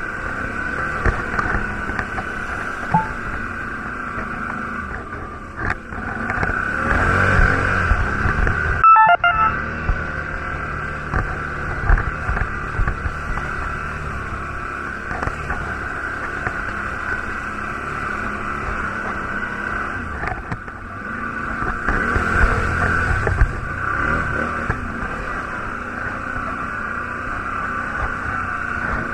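Quad bike (ATV) engine running as it is ridden over a rough trail, the revs rising twice, about a quarter of the way in and again about three quarters of the way through.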